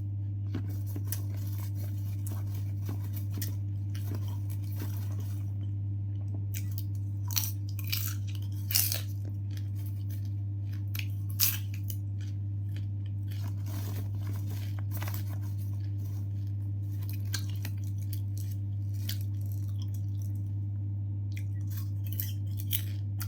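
A person chewing and crunching snack food close to the microphone, with scattered short crunches, over a steady low hum.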